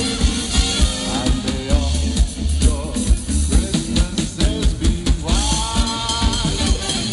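Live swing band music: a drum kit keeps a steady beat under a moving bass line, and the band plays held chords that swell in about five and a half seconds in.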